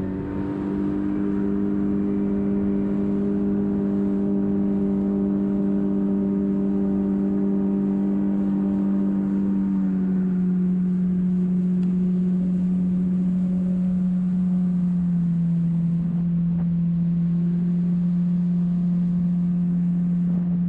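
Jet boat engine running steadily under way. Its pitch steps down slightly about halfway through and eases a little lower near the end.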